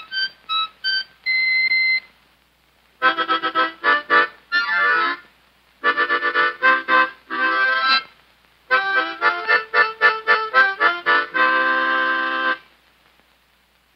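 Accordion playing short bursts of quick notes, separated by pauses, ending on a held chord near the end.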